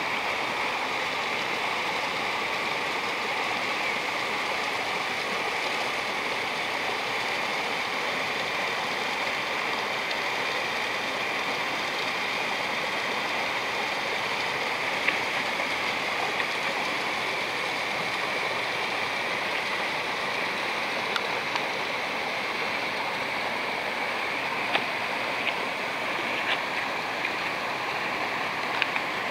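Shallow woodland stream rushing and splashing over stones, with a small waterfall, in a steady unbroken wash of water noise. A few light clicks come through in the second half.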